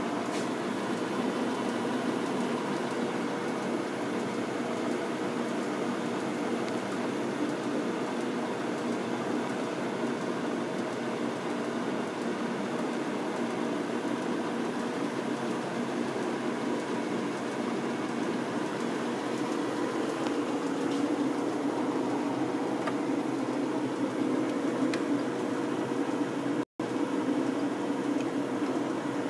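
American Pacemaker engine lathe running steadily with its lead screw engaged, the carriage travelling under power feed: an even mechanical hum of spindle and gearing with a few faint steady tones. The audio cuts out for an instant near the end.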